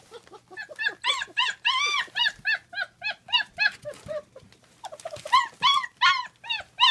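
A litter of German Shepherd puppies yelping and whining in quick, high-pitched cries, several a second, overlapping at different pitches, with a short lull about four seconds in.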